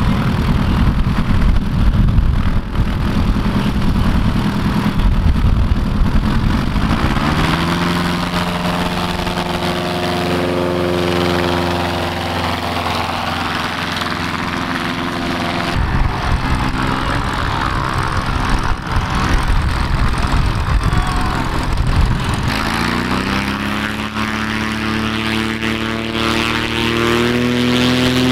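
Light tailwheel bush planes' piston engines and propellers running, twice throttled up to full power for a short takeoff run, the engine pitch rising and then holding, about a third of the way in and again near the end.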